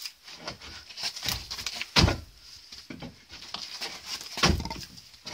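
Wooden trough boards being levered off with a crowbar: a string of wood knocks and creaks, the two loudest cracks about two seconds in and near the end. The boards are screwed on and hold firm against the bar.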